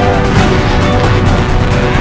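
Loud background music with a steady beat.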